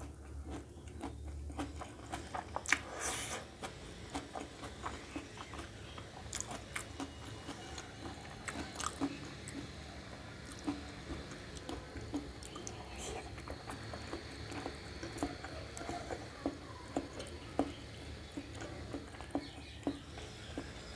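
Close-up chewing and slurping of chow mein noodles, with many irregular small wet smacks and clicks from the mouth.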